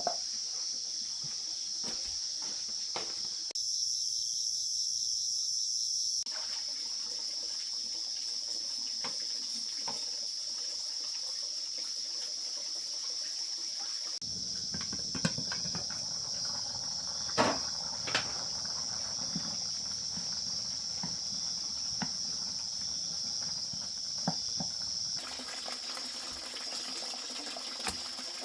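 Steady high chirring of crickets, with water splashing and a few sharp knocks, the sharpest about halfway through.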